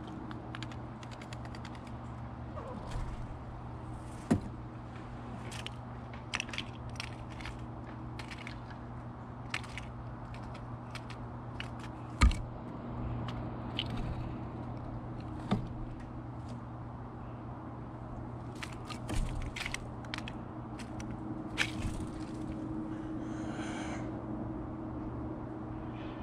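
Steller's jay pecking and rummaging among sunflower seeds on a wooden feeder platform: a scatter of sharp taps and scrapes with a few louder knocks, over a steady low hum.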